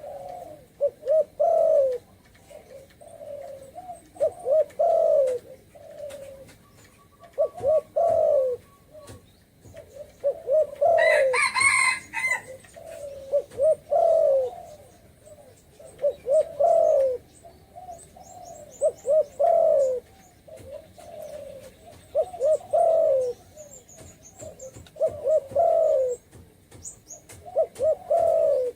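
Spotted dove cooing over and over in short phrases of a few low coos each. About eleven seconds in a brief, higher, brighter call from another bird cuts across, and faint high chirps come through later.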